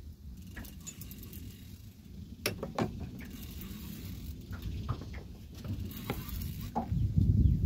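Low rumbling wind-and-water noise on an open boat, with scattered sharp clicks and knocks through the middle and a louder rumble near the end.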